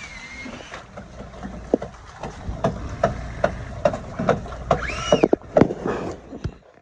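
Irregular knocks and clatter of dock construction work over a low, steady engine rumble, with a short rising-and-falling squeal about five seconds in. The sound cuts off abruptly near the end.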